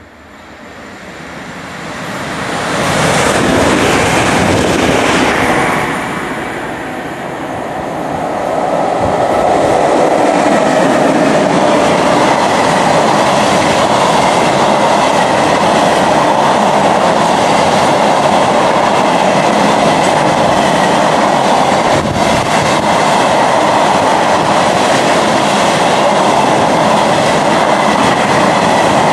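Empty steel freight train, hauled by a Class 92 electric locomotive, passing close by. The locomotive goes by loudest about three to five seconds in, then a long rake of empty steel wagons runs past with a steady rumble and wheels clicking over rail joints.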